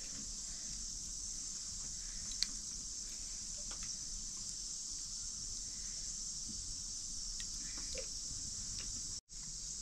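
Steady, high-pitched hiss of a chorus of insects, with a few faint clicks.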